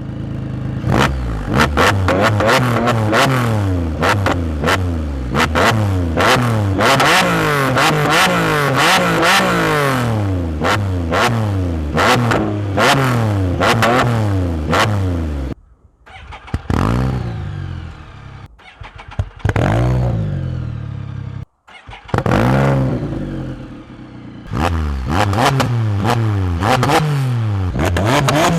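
Can-Am Spyder F3-S's 1330 cc Rotax three-cylinder engine revved in quick throttle blips through an RLS Punisher exhaust, its note rising and falling again and again. About fifteen seconds in this gives way to a few separate engine starts on different exhausts, the first on the stock exhaust, followed by more revving near the end.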